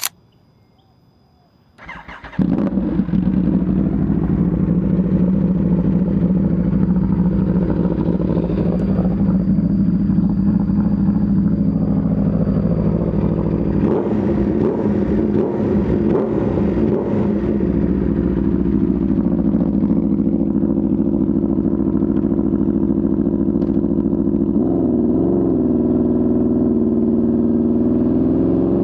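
Aprilia RSV4 RR's V4 engine through an Austin Racing exhaust, started about two seconds in and then idling steadily. The idle wavers a little around the middle, and a short throttle blip rises and falls near the end.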